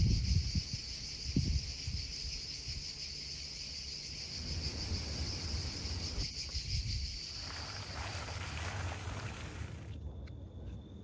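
A chorus of insects chirring in a steady high band over a low rumble. About ten seconds in the chorus cuts off, leaving a thin steady high tone and a few clicks.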